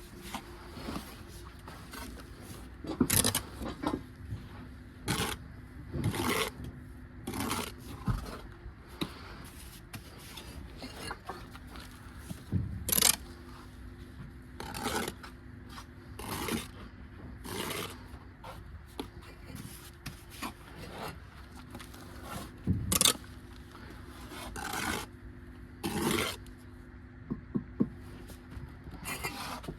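Steel brick trowel scraping and knocking against mortar and brick in repeated short strokes a second or two apart, over a steady low hum.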